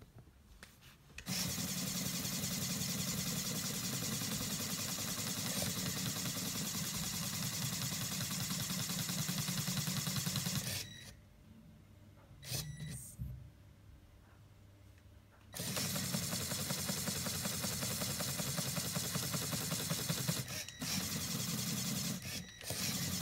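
Lego Power Functions motor driving a Lego pneumatic pump, running steadily with a fast chattering pulse as it pressurises the outrigger cylinders. It stops abruptly about eleven seconds in, with one short burst of sound during a pause of about five seconds, then starts again and runs on, with two brief breaks near the end.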